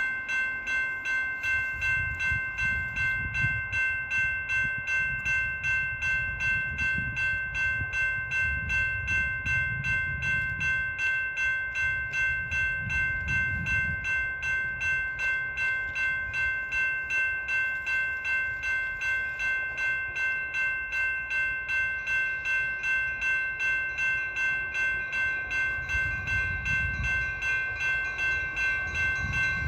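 Railroad grade-crossing warning bell ringing in rapid, even strikes, a couple a second, the crossing warning for an approaching train. A low, gusting rumble lies underneath.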